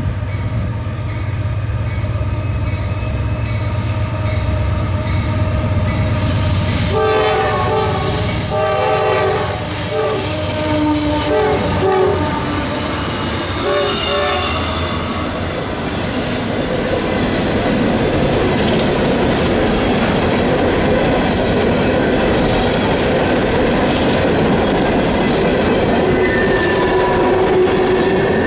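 CSX GE diesel locomotives approach with a low engine rumble, then sound a multi-chime air horn in a series of blasts starting about seven seconds in, and pass close by. Empty steel coal hoppers follow, rolling past fast with wheel clatter and a wheel squeal near the end.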